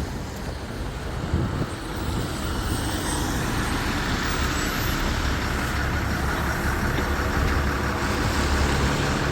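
Steady rushing outdoor noise over a low rumble, growing fuller about three seconds in.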